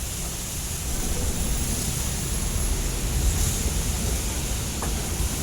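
Heavy rain falling in a storm, with gusting wind buffeting the microphone in a low, uneven rumble that picks up about a second in.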